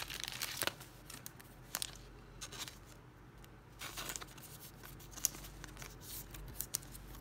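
Trading cards being handled: scattered short rustles, scrapes and small clicks of card stock sliding against other cards, busiest in the first second and sparser after.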